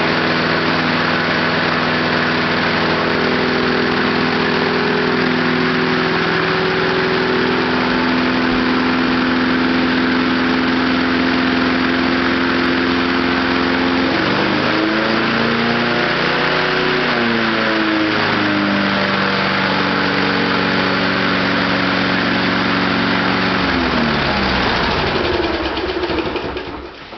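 Small lawnmower engine running on heated gasoline vapor. It runs steadily, is raced up high and comes back down about halfway through, then winds down near the end. The owner says the high racing is from throttling wide open, not from a lean mixture.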